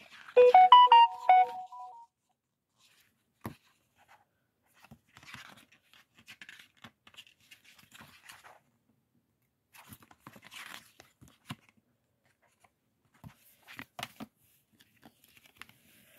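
A short tune of several stepped notes plays for about the first second and a half and is the loudest sound. After it come faint, scattered taps, scrapes and rustles of thick cardboard puzzle pieces and their box being handled.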